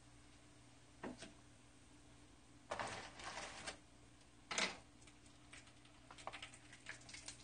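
Chopsticks clicking against a small frying pan and a shrimp cracker being lifted out of hot oil and set on paper towel: a few sharp clicks and a short rustle, then faint crackling of frying oil near the end.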